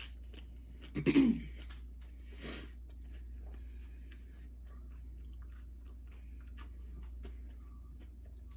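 Close-up chewing of Doritos nachos, with many small crunches and wet mouth clicks. About a second in comes a short vocal sound from the eater, and soon after a brief breathy burst.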